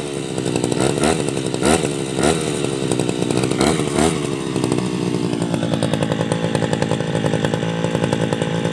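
Two-stroke engine of a Tabata backpack brush cutter, over seven years old with its original carburettor and exhaust, revved in several short throttle blips, then settling to a steady idle about five seconds in.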